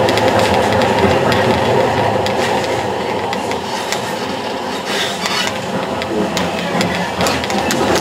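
Tram running along its rails, heard from inside the car: a steady rumble with irregular clicking and rattling from the wheels and car body, easing slightly in the middle.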